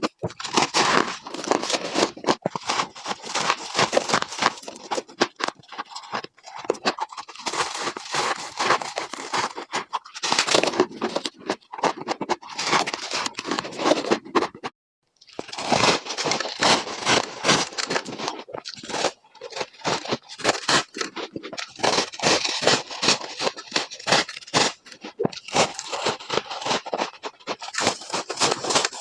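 Ice being bitten and crunched between the teeth, close up and sped up to double speed, giving a rapid, irregular run of crunches. The crunching cuts out completely for a moment about halfway, then resumes.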